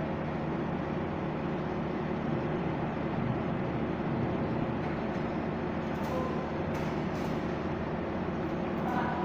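A motor or engine running steadily, a continuous low rumble, with a few faint clicks near the end.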